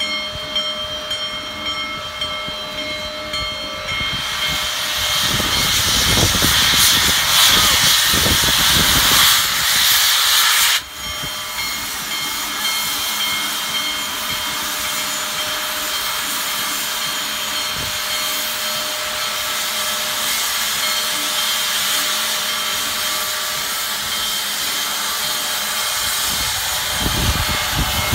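Steam hissing from the open cylinder cocks of Union Pacific Big Boy 4014, a 4-8-8-4 articulated steam locomotive, as it moves slowly. The hiss swells louder about four seconds in and cuts off suddenly about eleven seconds in, then carries on steadily, with a low rumble coming in near the end.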